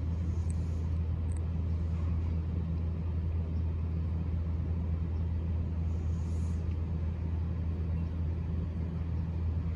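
Steady low electrical hum from a standing electric train's equipment, even in loudness throughout, with a couple of faint high chirps in the first second or so.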